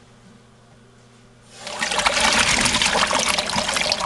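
Water heater drain being flushed: about a second and a half in, the ball valve opens and water suddenly rushes through the hose into a bucket, carrying hard-water calcium sediment out of the bottom of the tank.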